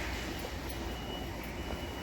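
Steady big-store background noise: a low rumble and hiss with a faint, thin high-pitched tone running through it, and no distinct event.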